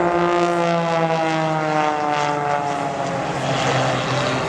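Single-engine aerobatic propeller plane running through a display manoeuvre: a steady engine and propeller note whose pitch slides down over the first two seconds or so and then holds lower.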